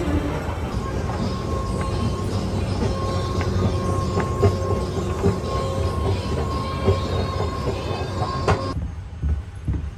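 Escalator running: a steady mechanical rumble with a faint whine and scattered clacks from the moving metal steps. The sound cuts off abruptly near the end.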